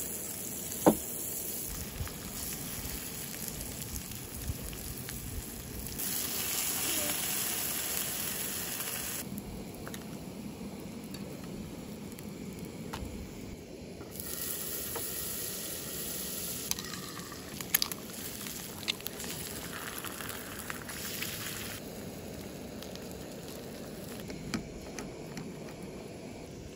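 Butter and scrambled eggs sizzling in a nonstick frying pan on a canister camp stove, with a spatula stirring and scraping. The sizzle is a steady hiss that swells louder in a couple of stretches, with a few sharp taps, the loudest about a second in.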